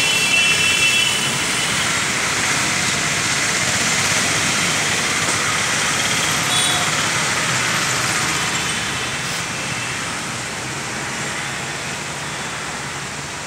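Road traffic noise, a steady hiss loudest in the first seconds and slowly fading away.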